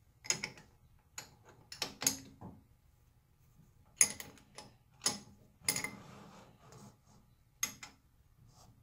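Irregular sharp metallic clicks and knocks, about eight of them, the loudest about four seconds in, as tooling is handled at a stopped metal lathe and the tailstock drill chuck is backed out of the freshly reamed gear bore.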